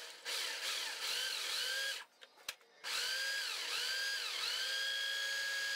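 Food processor motor pulsed in short bursts, each rising and falling in pitch, as it chops soaked sprouted seeds. After a brief pause about two seconds in, it gives two more pulses and is then held on, running steadily.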